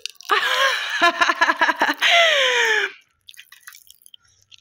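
A child's voice making a drawn-out wordless sound through a mouthful of popping candy, sliding down in pitch near its end, with fast crackles running through it. After it stops, about three seconds in, the candy's faint crackling and popping goes on.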